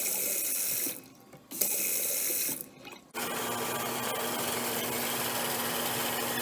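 Water running from a tap in short spells: it runs for about a second, stops, runs again for about a second, then runs steadily from about three seconds in.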